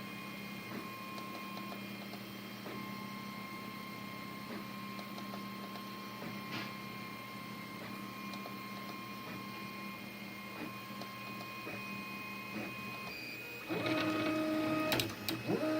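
A8 3D printer at work, its stepper motors whining in steady tones that break off and change pitch as the print head's moves change. About 14 s in, the motors get louder and switch to a new set of tones.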